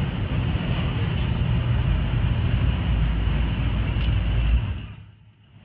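In-cabin drone of a Pontiac Grand Prix's 3800 Series V6 at about 90 mph, with a steady low rumble under road and wind noise. About four and a half seconds in, the sound falls away sharply to almost nothing, then comes back quieter.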